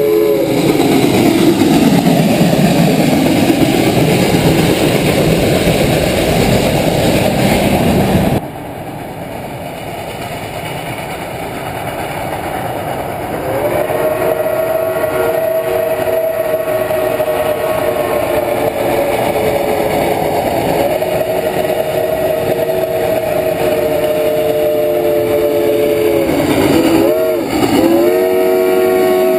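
Reading & Northern 425, a 4-6-2 steam locomotive, passing close by with a loud rushing noise after its whistle cuts off. After a cut, the same locomotive's steam whistle blows a long chord of several tones as it approaches. Near the end the whistle breaks off briefly with a wavering pitch, then sounds again.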